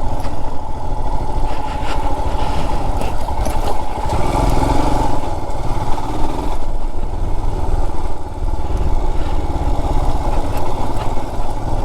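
Royal Enfield Himalayan's single-cylinder engine running steadily as the motorcycle is ridden along a dirt off-road track, with a short easing of the throttle about two-thirds of the way through.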